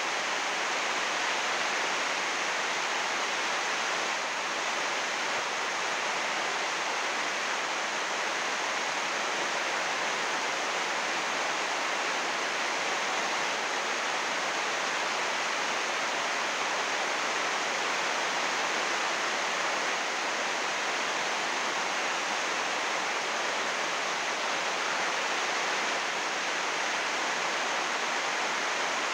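Heavy rain falling steadily on greenhouse roofing of UV plastic sheeting, 80 micron thick: a dense, even hiss of rain that holds level without let-up.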